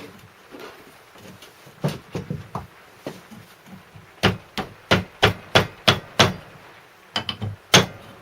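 Hammer taps driving the crankshaft and its bearing home into the crankcase of a 1935 Stuart Turner N two-stroke marine engine: a few scattered taps, then a steady run of about two to three taps a second, then a few more near the end.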